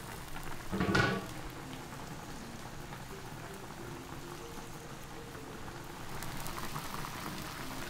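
Pork ribs and potatoes simmering in a large iron wok, a steady bubbling crackle, with one brief louder sound about a second in.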